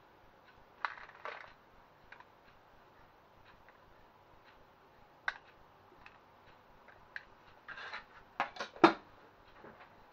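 Kitchen handling sounds as grated cheese is sprinkled into a paper-lined air fryer drawer: soft rustles and scattered light clicks, with a quick run of sharper knocks near the end.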